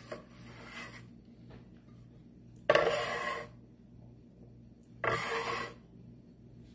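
A metal bench scraper scraped across a floured wooden board twice, each stroke starting suddenly and lasting under a second, as it scoops up cut gnocchi.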